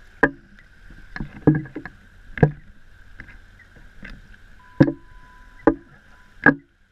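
Small waves slapping at the water's edge close to the microphone, a sharp splash every second or so over a steady wash of water.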